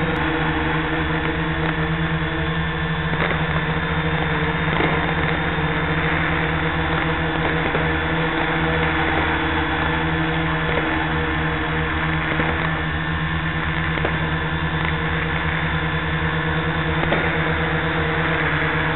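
Steady droning hum and hiss from the quadcopter's FPV recording, several steady tones held under a constant noisy wash.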